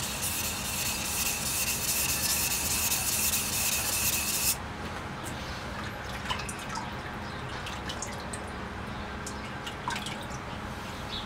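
Steel knife blade scraping on a wet whetstone, a dense hiss with a thin high ring, stopping suddenly about four and a half seconds in; after that only a few small drips and light clicks.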